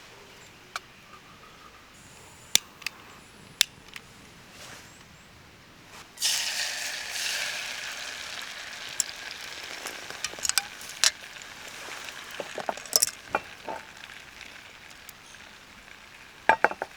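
A few light taps and clinks, then about six seconds in food goes into a hot pan and starts sizzling, loud at first and slowly settling, with utensil clinks and taps over it.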